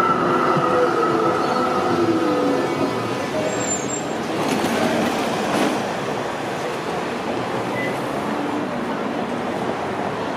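Melbourne Z3-class tram slowing to a stop close by, with a falling motor whine and a thin squeal over the first few seconds, then standing with an even background noise.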